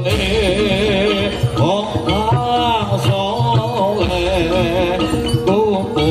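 Jaranan gamelan accompaniment: a wavering, ornamented melody line over a steady low drum-and-gong pattern.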